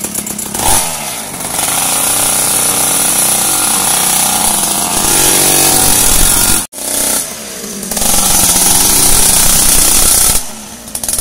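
Mini dirt bike's small engine running loud and buzzy, revving up and down, with a brief break just past the middle.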